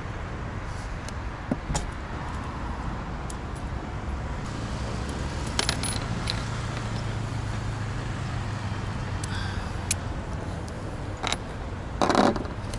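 Scattered small metallic clicks and clinks as hands and tools work on a satellite dish's motor housing, over a steady low traffic rumble. A louder, brief rattle comes near the end.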